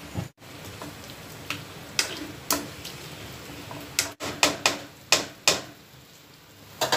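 A spatula knocking and scraping against a kadhai while chicken pieces fry in oil. About ten sharp clicks over a low steady hiss, most of them bunched together in the second half.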